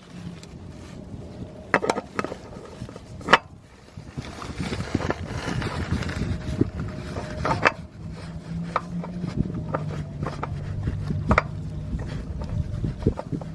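Scattered metal knocks, clicks and handling noises from hand tools being worked under the car, fitting the oil filter, with a steady low hum joining about halfway through.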